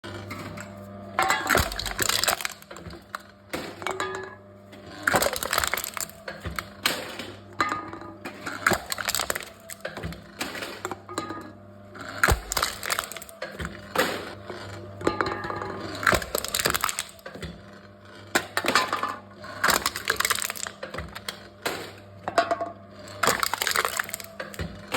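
Aluminium cans being crushed by a machine one after another, each giving a sharp crunching crack, about one every second or two.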